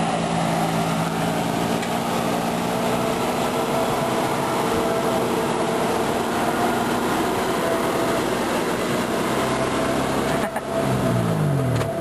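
A Toyota 4x4 truck's engine running steadily at low trail-crawling speed. Near the end its pitch falls as the truck passes close by.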